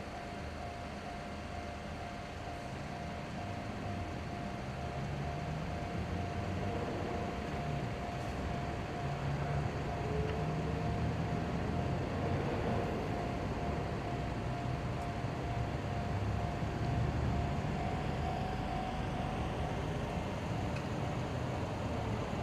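Japanese level-crossing warning bell ringing steadily, while the engine of a diesel railcar grows gradually louder as the train approaches.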